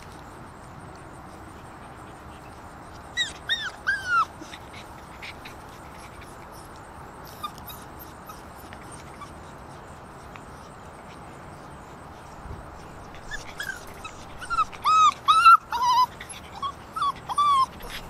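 Six-week-old Alaskan Malamute puppies whining and yipping in short, high-pitched calls: a brief cluster about three seconds in, then a longer run of calls near the end.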